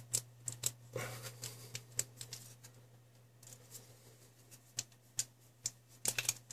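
Small knife blade scraping and clicking against a metal watch buckle as it cuts away a wax seal: scattered light clicks and scrapes, over a steady low hum.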